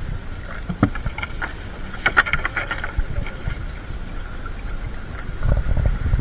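Water splashing and sloshing around a person wading and handling a fishing net, over a steady low rumble of moving water on the microphone. A quick run of sharp splashes comes about two seconds in.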